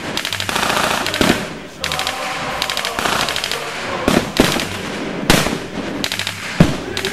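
Rapid bursts of blank machine-gun fire, with several louder single rifle shots spread through them, from a battle reenactment firing blanks.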